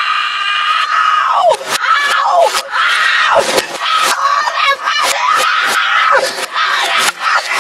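A boy screaming in a rage, with long high shrieks whose pitch swoops up and down and some shouted words. Sharp knocks, typical of a keyboard being hammered, break in throughout.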